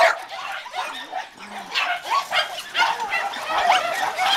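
Many kennelled Jack Russell terriers barking and yipping at once, in short overlapping barks.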